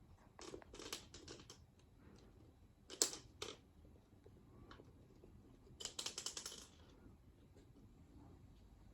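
A cat-toy stick clicking and clacking as the cats play with it: a run of light clicks shortly after the start, two sharp clacks about three seconds in, and a quick rattle of clicks around six seconds in.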